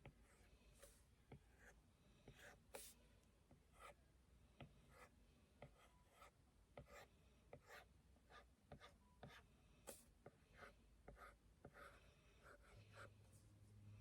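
Faint, irregular scratching and tapping strokes of a pen or stylus drawing on a surface, several short strokes a second with brief pauses between.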